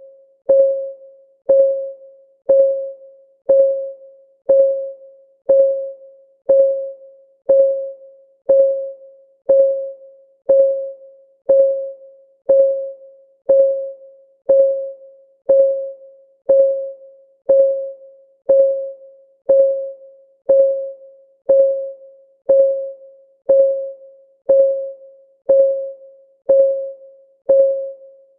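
Countdown timer's clock ticking, one tick a second. Each tick is a short electronic tone on one note that fades quickly, steady and even, counting off the seconds.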